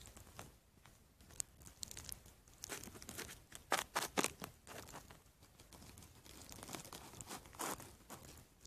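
Hands handling plastic Schleich toy figures and their accessories: faint rustling with scattered small clicks, a cluster of sharper clicks about four seconds in and another near the end.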